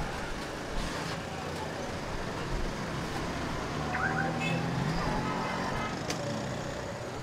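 Busy street background: a steady hum of road traffic with faint voices of people nearby.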